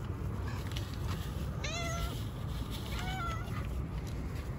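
Domestic cat meowing twice, two short calls about a second apart, over a steady low background rumble.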